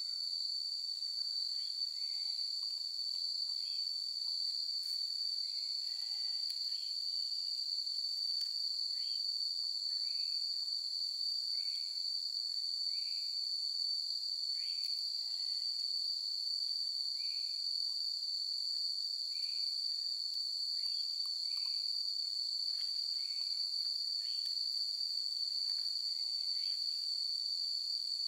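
A steady insect chorus, one continuous high-pitched buzz that never lets up, with faint short chirps repeating about once a second beneath it.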